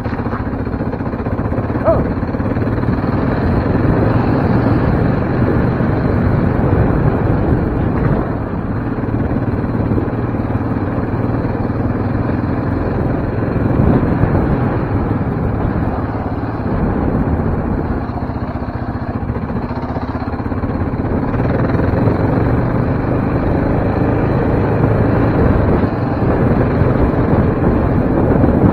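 Yamaha Raptor 700R sport quad's single-cylinder engine running under way on a dirt trail, its level rising and easing a little with the throttle.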